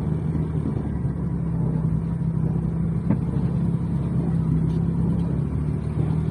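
Car engine and road noise heard from inside the cabin, a steady low hum as the car moves at low speed. There is one brief click about three seconds in.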